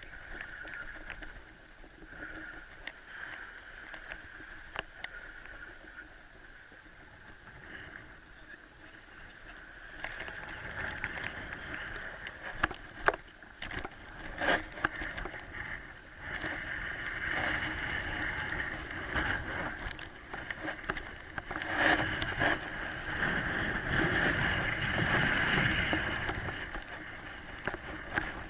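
Water sloshing and rushing, with scattered clicks. It grows louder and fuller about a third of the way in, in repeated surges.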